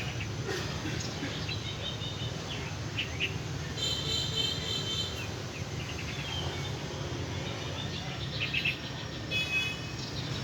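Small birds chirping, with short trilled calls about four seconds in and again near the end, over a steady low rumble of outdoor background noise.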